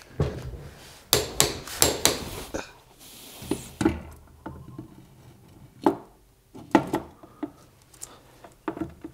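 Sharp metallic clicks and knocks from work on a limited-slip differential: a torque wrench on the ring-gear bolts in a cluster of clicks in the first couple of seconds, then sparser knocks of the differential and bearings being fitted into the gearbox case.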